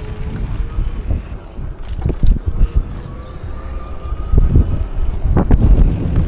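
Wind buffeting the microphone while riding a bicycle along a paved road, a low rumble with louder gusts about two seconds in and again near the end.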